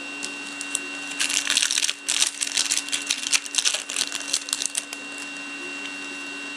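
Trading-card pack wrapper crackling and crinkling as it is torn open and the cards are pulled out, a dense run of crackle lasting about three and a half seconds.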